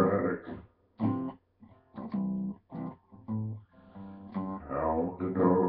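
Acoustic guitar being picked: single notes a moment apart, each ringing briefly, with fuller ringing passages at the start and near the end.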